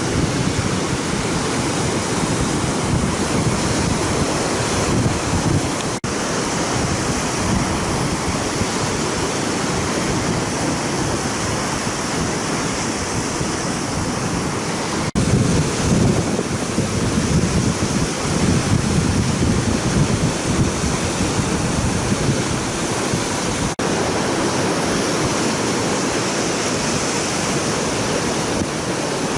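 Heavy storm-driven surf breaking on a sandy beach, with strong wind buffeting the microphone. The steady rush breaks off for an instant three times.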